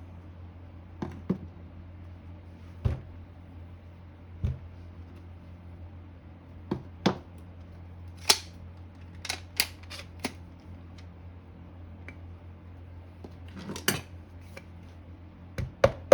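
Irregular metallic clicks and knocks of hand tools and small parts against a vintage General Electric fractional-horsepower motor during disassembly, as its centrifugal switch is freed from the back end casting. The clicks come singly and a second or more apart, with a quicker cluster near the end.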